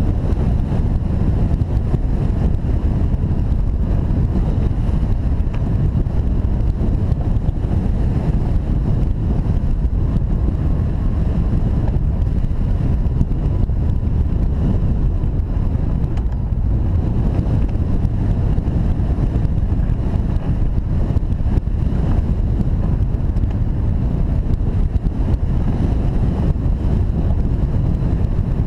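Airflow buffeting the microphone of a camera mounted on a hang glider in flight: a steady, loud low rumble of wind.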